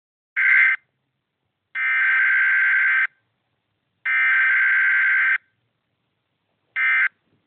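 Electronic emergency-alert attention tone, a steady buzzing beep at one pitch. It sounds four times: a short beep, two long beeps of over a second each, then another short beep near the end.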